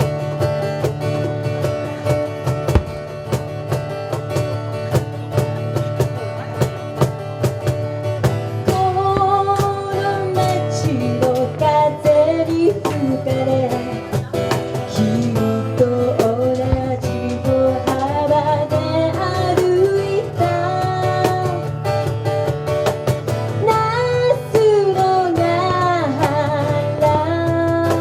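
Live acoustic pop song: acoustic guitar strumming steady chords, with a singing voice carrying the melody from about nine seconds in until shortly before the end.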